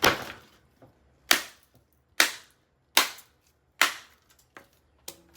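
Five sharp cracking knocks, a little under a second apart, with a few faint clicks between: 3.5-inch floppy disks' hard plastic shells being struck and broken open.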